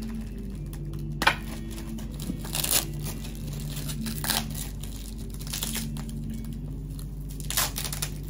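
Plastic parcel wrapping being torn and crinkled by hand in a series of short bursts, with a sharp rip about a second in.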